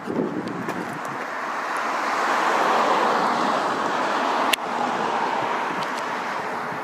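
A car passing on the road, its tyre and engine noise swelling and then fading, with a single sharp click about four and a half seconds in.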